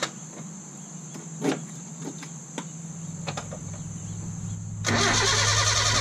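A few clicks, then a low hum building, then the Datsun 1200's A12 four-cylinder engine catches about five seconds in and runs loudly and steadily after a long period of sitting. It is running with a very loose fan belt.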